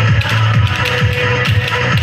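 Dance music with a heavy bass beat.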